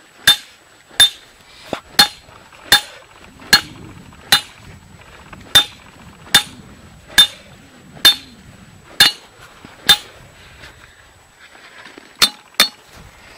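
Hammer striking a heat-treated steel earth anchor driver, driving an MB Super Stick earth anchor into very hard ground. The sharp metal-on-metal blows come evenly, a little over one a second, each with a short ring. They stop about ten seconds in, then two quick blows follow near the end.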